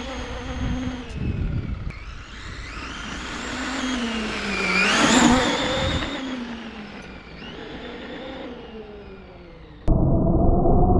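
Traxxas Maxx WideMaxx 1/10 RC monster truck's brushless motor whining as it speeds up and slows down, its pitch rising to a peak about five seconds in and then falling away. Near the end it cuts off suddenly and a different, muffled steady sound takes over.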